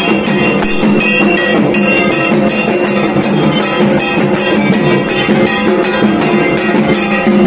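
Dhak drums beating a steady rhythm of about three strokes a second, with ringing metallic tones sounding over the drumming.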